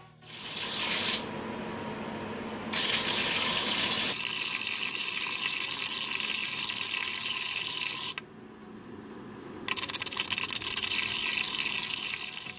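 DIY spark-erosion (EDM) machine eroding with a brass tube electrode under dielectric fluid: a steady crackling hiss of spark discharges that drops back briefly twice, about a second in and again about eight seconds in.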